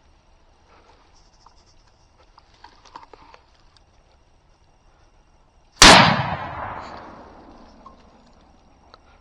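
A single .30-06 rifle shot about six seconds in, its report rolling away in an echo that fades over about two seconds. Before it, only a few faint small clicks and rustles.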